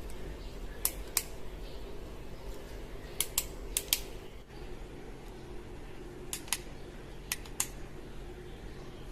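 Sharp plastic clicks of a toy gun being handled, coming in quick pairs, five pairs in all, over a low steady hum.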